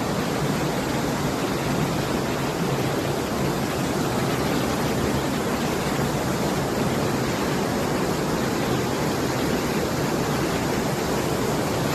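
Spokane River rushing through its rapids: a steady, even wash of white water.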